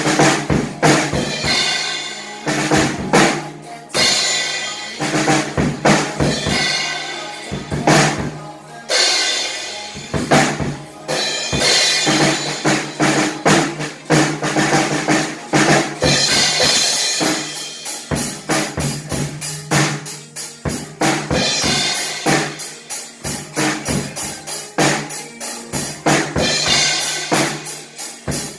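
Pearl acoustic drum kit played in a steady beat of kick, snare and cymbals over a recorded pop song. About two-thirds of the way through, the hits become quicker and more even, roughly four a second.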